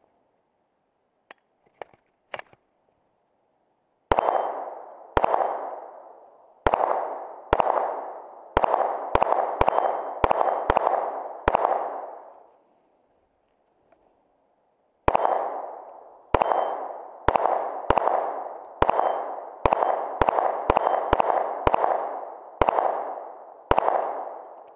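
Smith & Wesson M&P 22 pistol firing .22 LR in two strings, about ten shots, a pause of about three seconds, then about a dozen faster shots. A ringing clang trails the shots as the small steel plate is hit. A few light clicks come before the first shot.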